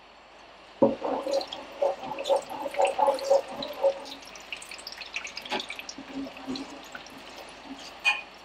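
Watery chilli paste ladled into hot oil in a wok, sizzling and spattering from about a second in, with a metal ladle clinking and scraping against the pan.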